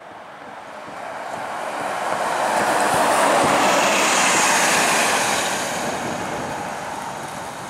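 City bus driving past close by: its engine and tyre noise swells to a peak about halfway through, then fades as it moves away.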